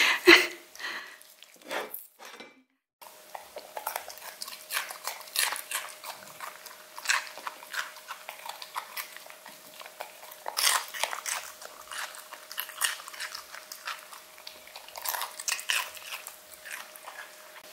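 An English cocker spaniel biting and chewing raw celery: irregular crisp crunches, several a second, with a faint steady hum underneath.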